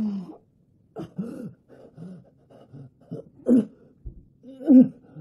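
A person coughing and groaning in distress, in a string of uneven bursts. The two loudest come about three and a half and nearly five seconds in.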